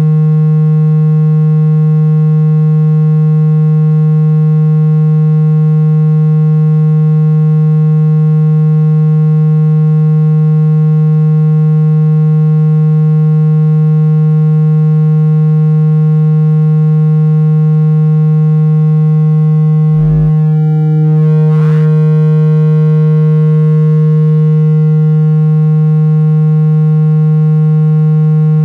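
Steady low, buzzy synthesized tone, a speaker-cleaning sound meant to vibrate a phone speaker's diaphragm to shake out water and dust. About two-thirds of the way through it briefly breaks up with a couple of clicks, then carries on unchanged.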